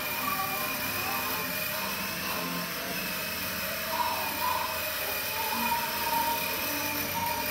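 Electric drive motor of a children's battery-powered ride-on toy motorcycle, with a steady high whine that shifts slightly in pitch partway through as it drives along.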